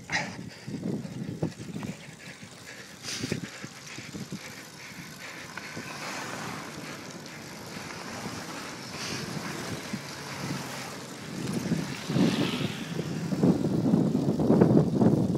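Wind buffeting the microphone while cycling along a gravel road, with the tyres rolling over the gravel. The buffeting grows stronger over the last few seconds.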